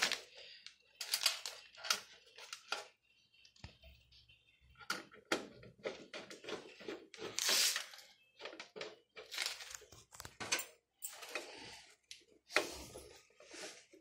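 Hand screwdriver turning screws into the sheet-steel chassis of a PC cabinet, with the panel handled alongside. Irregular metal clicks, scrapes and rustles come in short runs with brief gaps between them.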